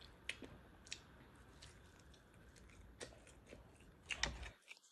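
Faint chewing and mouth clicks from eating a chicken wing, with a louder burst of chewing a little past four seconds in; the sound drops out briefly just before the end.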